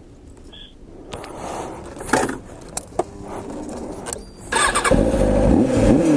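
A few light clicks and knocks, then about four and a half seconds in a vehicle engine starts up and runs loudly, its pitch rising and falling.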